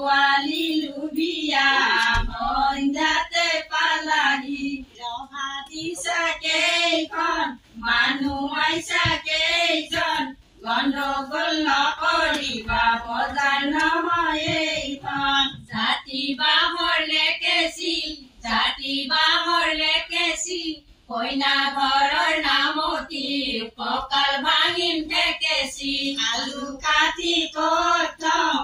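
Women singing an Assamese biya naam, a traditional wedding song, without instruments. The phrases waver in pitch, with short breaks between them.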